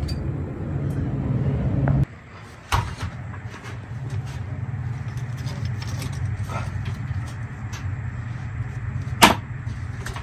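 Evaporator fan motor of a frozen food case running with its newly fitted blade, a steady hum that cuts off suddenly about two seconds in. After that a lower steady hum continues under scattered clicks of hands working at the fan motor mount, with a sharp knock near the end.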